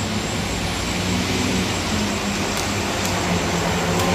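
A steady outdoor rumble of background noise, with no single event standing out and only a few faint ticks.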